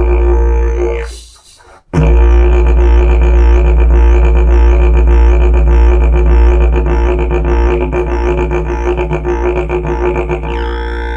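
Hand-carved 65-inch agave didgeridoo droning on a low A#, with a rhythmic pulsing in its tone shaped by the player's mouth. The drone fades out about a second in and comes back sharply a moment later.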